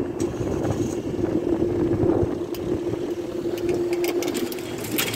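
Level crossing barrier mechanism humming steadily as the barrier booms rise, stopping about four and a half seconds in as they reach the top, over a low rumble.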